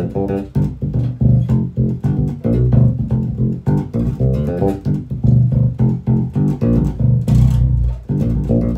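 Fodera 7-string electric bass played in a steady run of quick plucked notes with ringing low notes, its lowest string dropped from B to G by a Hipshot detuner.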